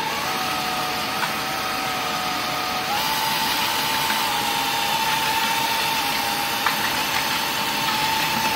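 Electric drill spinning a paddle mixer through grout in a bucket: a steady motor whine that shifts in pitch about three seconds in, with a vacuum cleaner running alongside.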